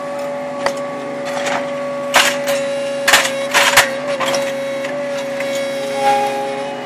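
Mechanized paver-laying machine running steadily, with a cluster of sharp clacks as its clamp head closes on a layer of concrete pavers on the pallet, the concrete blocks knocking together, mostly between about two and four seconds in.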